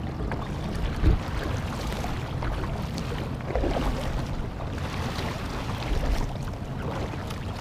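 Wind rumbling on the microphone with water lapping against a kayak hull, and a short thump about a second in.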